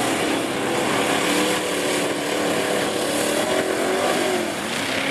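Lifted pickup truck's engine revving hard under load as it plows through a mud pit, its pitch rising and falling.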